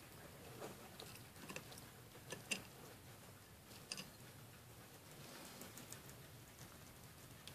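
Pet hedgehog crunching dry kibble: faint, irregular crunches and clicks, the loudest about two and a half seconds in.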